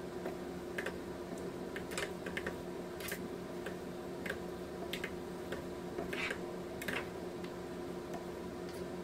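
Wooden spatula stirring and tossing flat rice noodles and vegetables in a nonstick frying pan, with irregular light clicks and taps as it strikes the pan. A steady low hum runs underneath.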